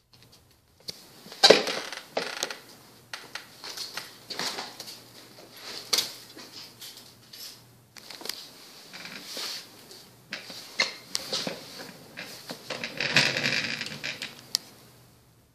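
A dog and a cat play-wrestling on a hardwood floor: irregular scuffling with sharp clicks and knocks of claws and paws on the boards, loudest about a second and a half in and again in a busy stretch near the end.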